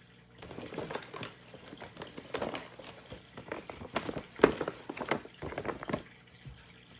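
Paper crinkling and rustling in quick irregular crackles as a present is packed into a paper gift bag. It starts about half a second in and stops about six seconds in.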